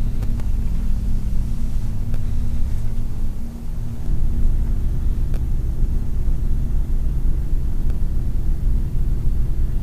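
A loud, steady low rumble, with a brief dip about three and a half seconds in and a few faint clicks.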